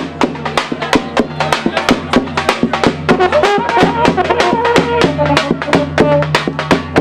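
Balkan brass band playing live: a large bass drum beaten with a stick in a quick, steady beat under low held horn notes, with a trumpet and horn melody coming in over them from about the middle.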